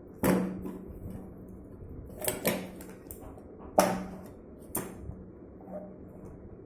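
About five sharp knocks or clacks at irregular spacing, each with a short low ring after it, the loudest nearly four seconds in.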